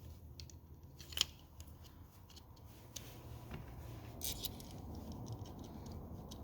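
Light clicks and scraping of small metal spinning-reel parts being handled and fitted, with one sharper click about a second in.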